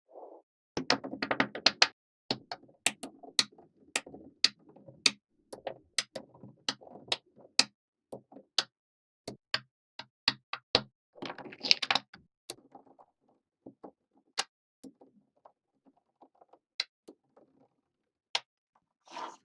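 Small magnetic balls clicking and snapping together one at a time at an irregular pace, with short bursts of denser rattling clatter near the start and about eleven seconds in.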